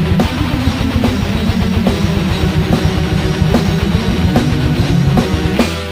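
Heavy metal band playing, with distorted electric guitars over fast drumming. Near the end it hits a final crash and a held chord that starts to ring out.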